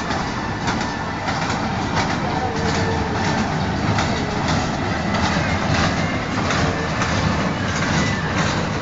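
Children's ride-on train running along its track: a steady rumble with frequent irregular clicks and rattles from the wheels and cars.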